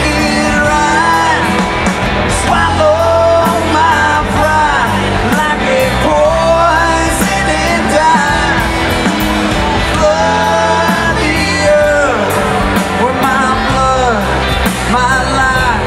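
Live band playing a song, with a lead singer's voice over bass and drums keeping a steady beat.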